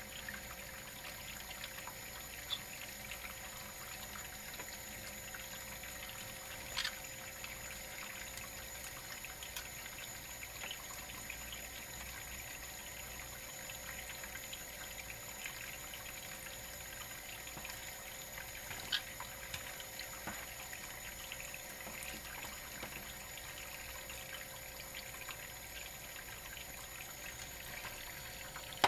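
Thin stream of tap water running steadily onto a plastic plate in a stainless steel sink, splashing over a green-cheeked conure bathing under it. A few brief sharp sounds stand out above the steady trickle.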